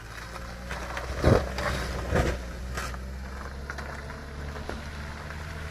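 Vehicle engine running with a steady low hum, with two short knocks about one and two seconds in.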